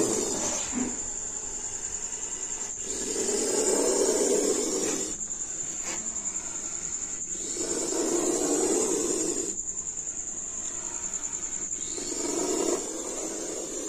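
Indian spectacled cobra hissing with its hood spread: long, breathy hisses about every four seconds, a defensive threat.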